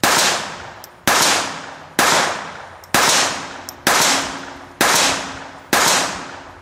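Erma Excam RX22 .22 Long Rifle semi-automatic pistol firing seven shots, about one a second, each a sharp crack with a long echo fading after it. The pistol cycles and fires every round in turn.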